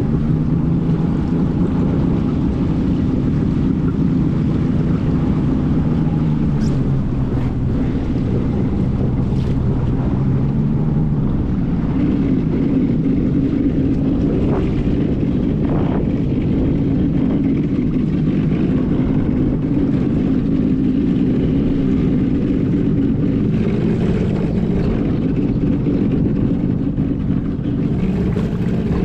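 Two-stroke engine of a 1997 Arctic Cat TigerShark Monte Carlo 1000 personal watercraft running steadily under way, with wind on the microphone. The engine's pitch shifts about twelve seconds in.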